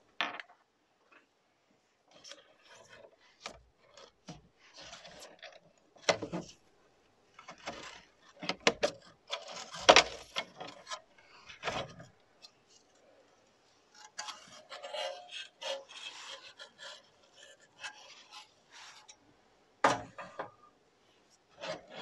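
A PS5's metal motherboard shield plate being worked loose and lifted off the console by gloved hands: irregular scraping and rubbing of sheet metal against the casing, with scattered sharp clicks, the loudest about ten seconds in.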